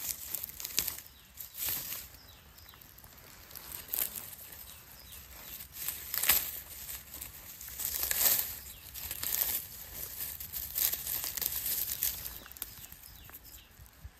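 Irregular rustling and crackling of leaves and stems being pushed through and handled, in short bursts a second or two apart, with a few sharper snaps.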